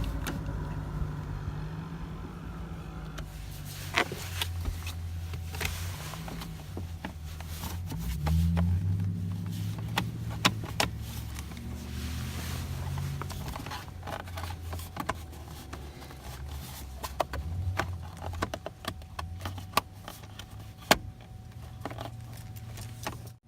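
Plastic steering column cover pieces being handled and pressed together: scattered clicks and knocks, with a few sharper snaps, over a low steady hum.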